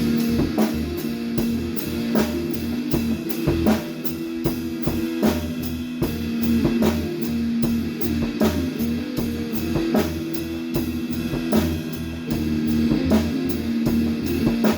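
A rock band rehearsing live: a drum kit keeps a steady beat under electric guitar and a low pulsing bass part, all kicking in together right at the start.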